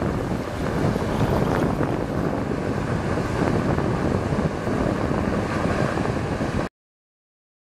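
Wind buffeting the microphone over the rush of water from a passing cruise ship's bow wave, a steady noise that cuts off suddenly about a second before the end.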